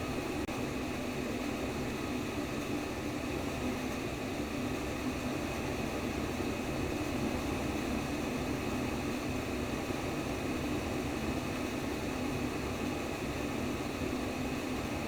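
Steady simulated womb sound: an even, unbroken white-noise whoosh, fullest in the low-middle range, with no rhythm or pulse.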